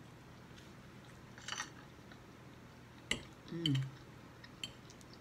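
A metal fork on a dinner plate, with one sharp clink about three seconds in, followed by a brief falling hum, amid soft eating sounds.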